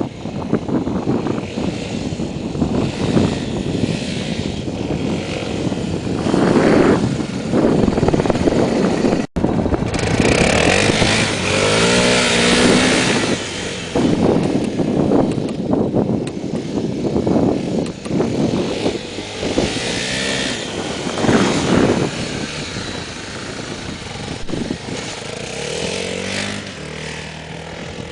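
Honda XR250 Tornado's single-cylinder four-stroke engine running under a steady rush of noise, its pitch rising and falling as it is revved, most clearly about halfway through and again near the end. The sound cuts out for an instant about nine seconds in.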